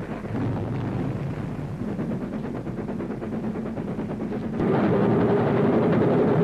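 Steam train running, its noise dense and steady. About four and a half seconds in the sound jumps louder and fuller.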